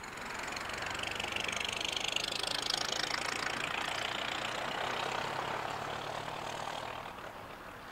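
Ford Model T speedster driving past, its four-cylinder engine running with tyre and road noise, loudest two to three seconds in and fading as the car pulls away.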